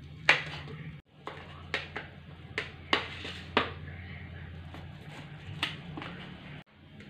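A knife cutting through a macaroni omelette and clinking against a plate, about seven sharp clinks at uneven intervals over a steady low hum.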